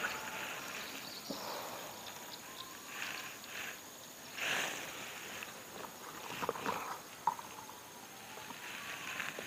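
Water lapping softly against the hull of a small boat in gentle swells every second or two, with a few small clicks about two-thirds of the way through as fishing tackle is handled.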